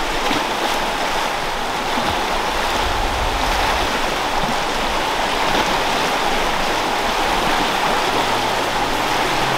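Fast river water rushing through rapids around a drifting boat: a steady, even churning rush.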